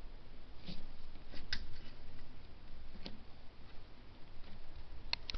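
A few scattered light clicks and taps: four short clicks spread over the stretch, the last a quick pair near the end.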